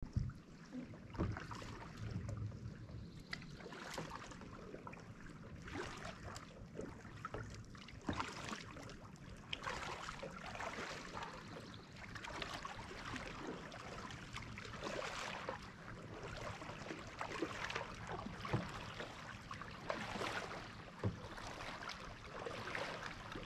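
Kayak paddle strokes splashing in the water, a swish about every two seconds.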